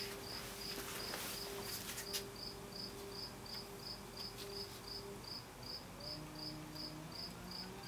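Buchi R-124 rotary evaporator's drive motor turning the flask: a steady hum, then about five and a half seconds in a whine that rises in pitch as the rotation speed is turned up. A high, even chirp repeats about three times a second throughout.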